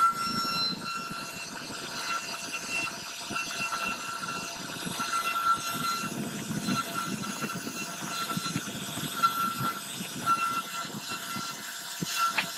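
CNC router spindle running with its V-bit carving wood: a high thin whine that cuts in and out as the cut goes on, over a rough hiss of the cutting.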